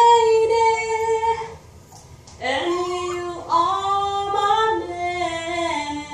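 A woman singing long, held notes of a slow ballad while a small dog howls along with her, in two phrases with a short break about one and a half seconds in.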